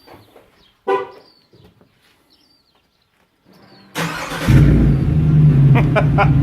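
Car engine cranked and started about four seconds in, catching quickly and settling into a loud, steady idle through a shortened exhaust with the rear pipe and tips removed and the Borla XR1 muffler valve clamped open. A brief chirp sounds about a second in.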